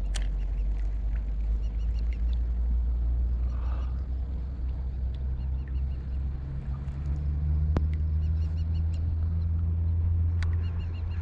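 Steady low rumble of a distant engine, its pitch stepping up slightly about halfway through, with faint repeated bird calls above it.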